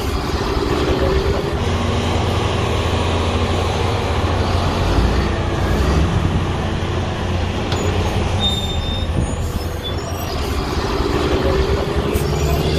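Heavy diesel haul truck running under load, a steady engine and drivetrain rumble with faint high squeaks and rattles.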